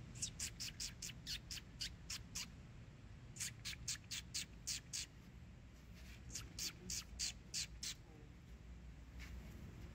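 Sharp, high chirps from a small animal off-camera, in three quick runs of seven to ten notes at about five a second, with a single faint chirp near the end.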